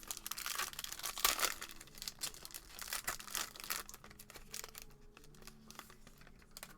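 Foil trading-card pack wrapper crinkling and tearing as it is ripped open, dense for about four seconds and then thinning to lighter rustling.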